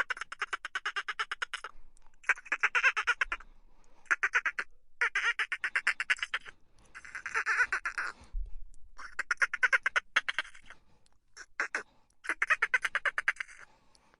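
An animal calling in repeated bouts of fast rattling pulses, about a dozen a second, each bout lasting one to two seconds with short pauses between.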